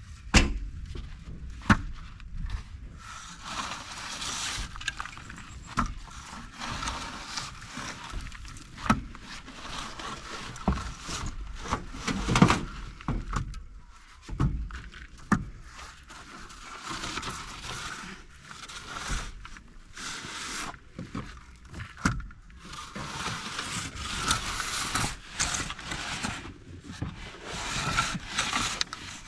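Plastering trowel scraping and spreading plaster on a masonry wall in repeated strokes, with sharp knocks of the tool now and then.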